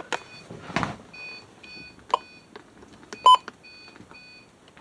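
Faint, repeated short high-pitched beeps from an Eton SolarLink weather radio sounding its alert some way off. A soft thump comes near the start and two sharp clicks come around the middle, the second the loudest.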